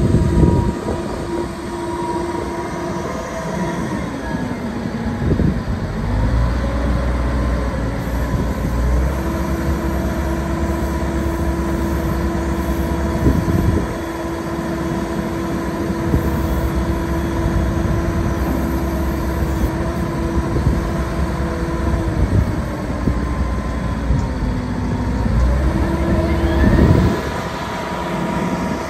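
Cat 914G wheel loader's diesel engine running as the loader drives past, its pitch dipping and rising a few times as the revs change.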